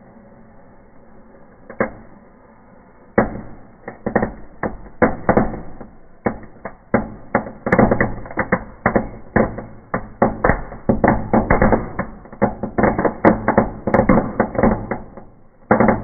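Small firecrackers going off inside a fireplace: a low hiss with a single bang about two seconds in, then from about three seconds a rapid, irregular string of sharp bangs, several a second, with brief gaps. So many go off at once because the fire's heat lit nearly all the fuses together.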